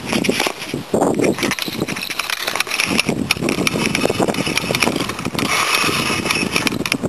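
Fishing reel being wound in, with fast, irregular ratchet-like clicking, as a hooked carp is played on the rod.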